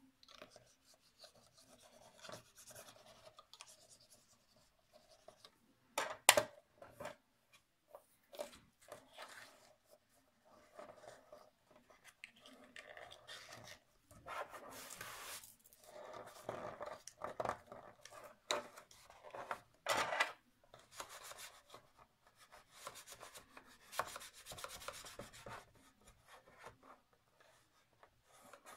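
Cardstock being handled, pressed and rubbed by hand as the glued flaps of a small paper box lid are set, with irregular rustling and scraping. Two sharp knocks about six seconds in, and near the end a bone folder rubs along the box's edges.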